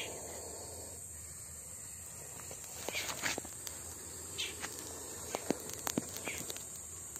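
Steady high-pitched drone of insects, with a few sharp clicks and short scrapes about three seconds in and again around four to six seconds in.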